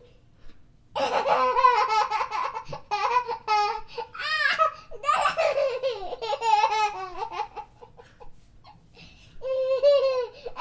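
High-pitched laughter in rapid, pulsing fits that start about a second in and go on with short breaks. After a lull near the end comes one more short burst of laughing.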